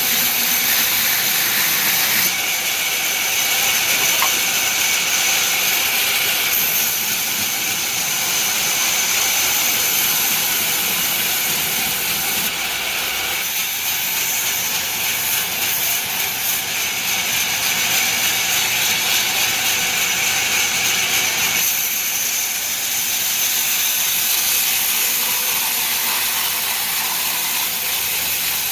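Sawmill saw and machinery running in steady, loud, hissing noise, its tone shifting abruptly a few times.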